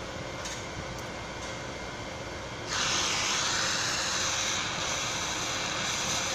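Oxy-acetylene torch hissing. About three seconds in, a much louder steady hiss starts suddenly and holds.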